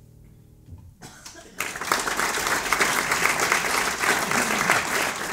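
The last piano notes die away, then a theatre audience starts applauding about a second and a half in, with steady clapping from many hands.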